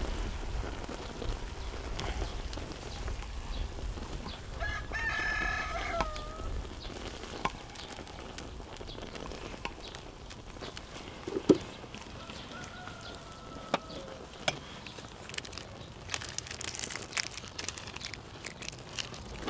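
A rooster crowing once, about five seconds in: one call of about a second and a half that drops in pitch at the end. Scattered clicks and knocks sound around it, the loudest about eleven seconds in.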